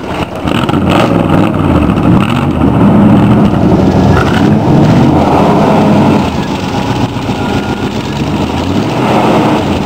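1947 Ford hot rod engine running through freshly re-gasketed headers and glasspack mufflers, held at higher revs for about six seconds and then dropping back. The exhaust still leaks at the worn glasspack gaskets, which the owners can still hear.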